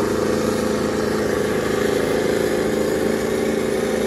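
Two farm tractors' diesel engines running hard under heavy load, a steady drone, as the tractors strain against each other hitched back to back in a tractor tug-of-war.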